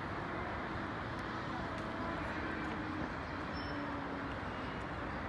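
Steady city ambience: a constant hum of traffic with no single event standing out.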